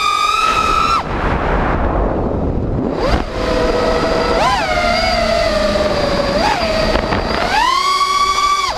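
5-inch FPV quadcopter's brushless motors and propellers whining, the pitch rising and falling with the throttle over a rush of air. The whine drops sharply about a second in, swoops up and down through the middle, climbs again near the end and cuts off just before it ends.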